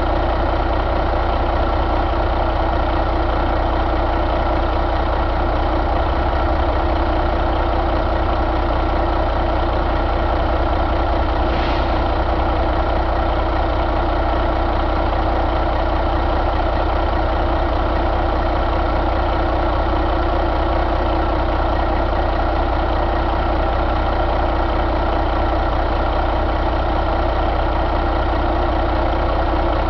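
2007 Caterpillar C15 inline-six diesel engine idling steadily.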